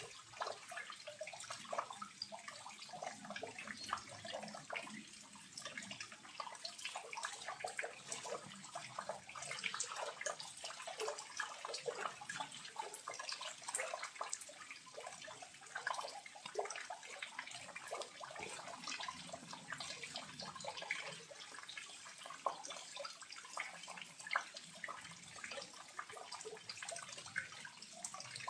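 A small waterfall at low flow, its water softly murmuring and splashing over rock in a dense, uneven patter of small drips and splashes.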